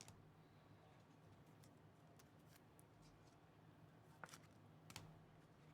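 Near silence: room tone with a faint low hum, and two faint clicks about four and five seconds in.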